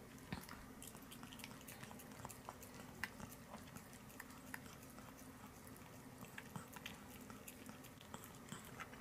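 Pomeranian licking food off a metal spoon: faint, irregular wet smacking clicks of its tongue and mouth, several a second.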